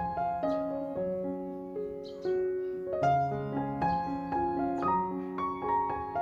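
Background piano music: a gentle melody of single notes over lower held notes, at an even pace.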